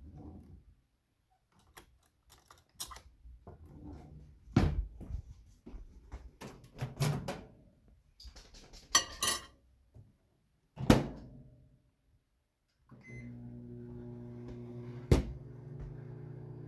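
Microwave oven being loaded and started. Handling knocks and the clack of the door come first, then a short keypad beep, then the oven's steady running hum. One sharp click sounds a couple of seconds into the run.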